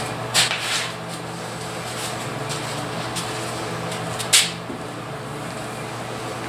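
A few short, hissing swishes of a cloth wiped across the truck's freshly sanded paint, the loudest about four seconds in, over a steady background hum.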